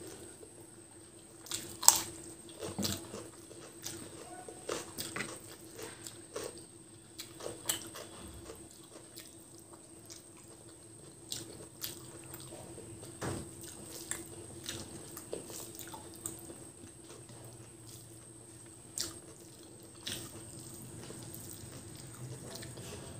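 Wet eating sounds by hand: fingers mashing rice into chicken curry gravy, chewing and mouth smacks. A scatter of short sharp clicks runs through it, the loudest about two seconds in, over a faint steady hum.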